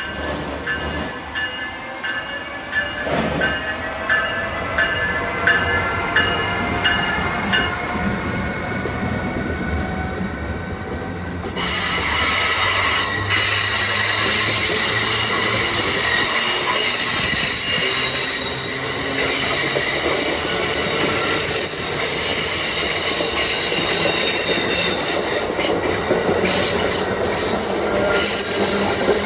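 Amtrak Northeast Regional passing on a curve behind an ACS-64 electric locomotive: a slowly rising electric whine as the locomotive comes by. About twelve seconds in the sound turns suddenly louder, into the rumble and high-pitched wheel squeal of the passenger coaches rolling past.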